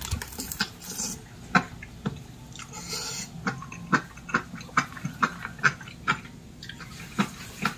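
A small child chewing and biting a snack close to the microphone: irregular sharp crunching clicks and wet mouth noises, a few a second.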